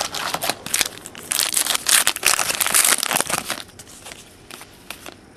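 Trading cards being handled and flipped through, with crinkling and rustling that is busiest from about one to three and a half seconds in and dies down near the end.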